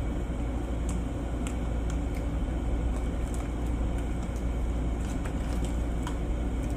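Steady low background hum, with scattered faint clicks from hands pulling apart grilled chicken.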